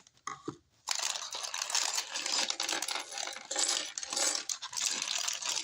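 Plastic Lego bricks clattering and rattling as they are poured out of an opened parts bag, a dense run of small clicks starting about a second in.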